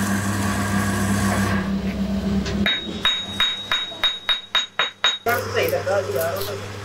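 Stick welding on a steel shaft: a steady electrical hum with crackle. In the middle it is broken for about two and a half seconds by a quick run of sharp metallic taps, about four a second, before the hum and crackle return.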